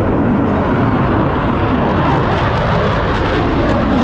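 Loud, steady engine noise of an F-35C Lightning II fighter jet flying overhead.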